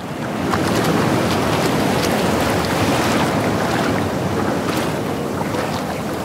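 A steady rushing noise at an even level, without speech or music.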